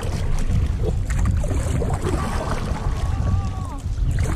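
Steady low rumble of wind and river water on a kayak-mounted camera's microphone, with faint distant voices in the middle of the stretch.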